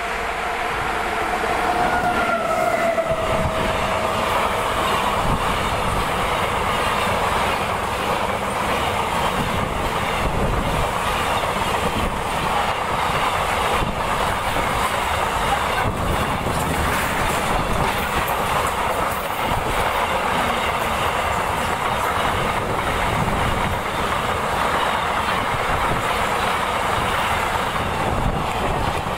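Train passing at high speed on a mainline track: a horn tone fades out in the first few seconds, then a steady rush of coaches going by with wheels clattering over the rails.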